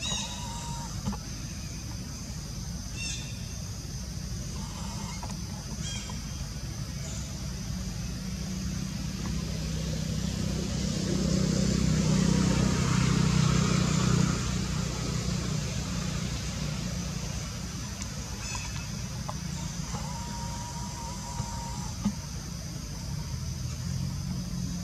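Outdoor background: a steady low rumble that swells up and fades again around the middle, under a steady high hiss, with a few brief calls near the start and again near the end.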